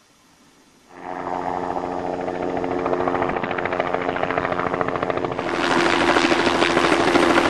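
Helicopter flying overhead with a sling load on a long line: a rapid, even rotor beat over a steady engine tone. It starts suddenly about a second in and grows louder about five seconds in.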